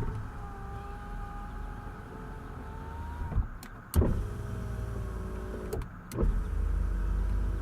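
Oldsmobile Intrigue power window motors running three times in a row, worked from the driver's door switch, with a sharp click between runs. The first run's whine rises slightly in pitch near its end.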